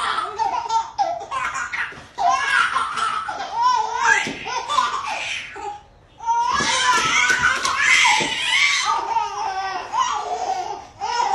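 Hearty laughter, including a baby's laugh, in two long stretches with a short pause about six seconds in, mixed with some talk.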